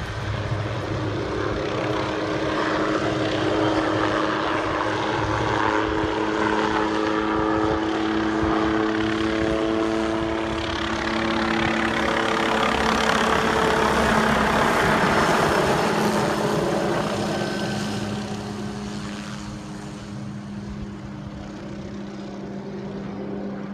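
Hughes OH-6 Cayuse helicopter flying past: a steady turbine whine over the beat of the rotor. It grows louder as the helicopter comes closer, is loudest about two-thirds of the way through, then fades as it flies off.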